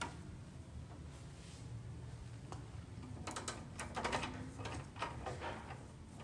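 Horizontal window blinds tilted with the twist wand: a few single clicks, then a quick run of clicking and slat clatter in the middle as the slats turn.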